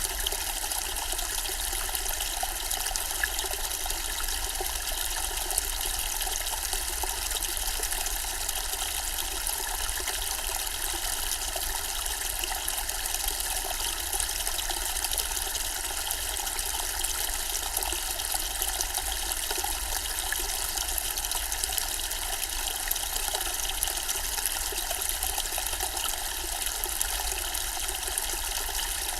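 Zen-style water fountain trickling steadily, an even splashing that does not change.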